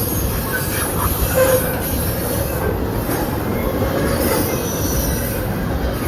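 CSX intermodal freight train cars rolling past with a steady rumble of wheels on rail, and faint, shifting wheel squeal over it.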